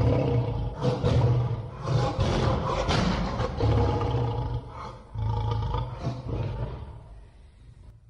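A lion roaring in a series of deep roars about a second apart, growing weaker and fading out near the end.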